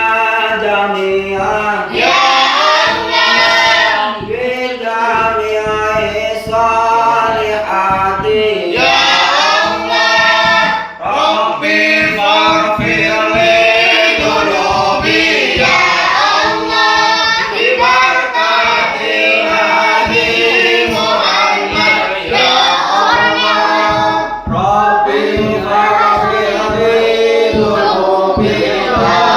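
A group of voices singing sholawat, Islamic devotional songs praising the Prophet, together in chorus, with short breaks between phrases.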